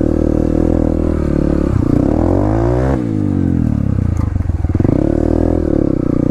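Dirt bike engine being ridden, revs climbing for about three seconds, then dropping sharply as the throttle is shut off, then picking up and easing off again.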